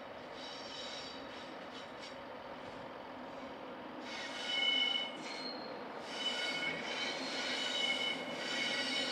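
Class 91 electric locomotive and its coaches rumbling slowly round a sharp curve, the wheels breaking into an on-and-off high-pitched squeal about four seconds in, loudest shortly after it starts: flange squeal on the tight curve.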